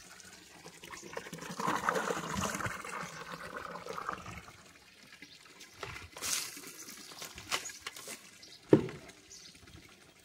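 Water pouring and splashing over a water buffalo's head and onto muddy ground as the animal is washed, heaviest in the first few seconds and then trickling. A sharp knock sounds near the end.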